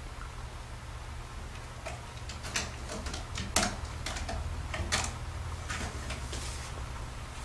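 A cat's claws catching and scratching on the sisal rope of a cat-tree post as it climbs up onto a platform: a run of sharp scratchy clicks, the loudest about three and a half and five seconds in. A steady low hum runs underneath.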